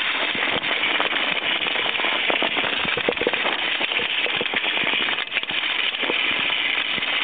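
Siberian huskies running over snow: a steady hiss of crunching, scraping snow, dotted with many small crackles and clicks.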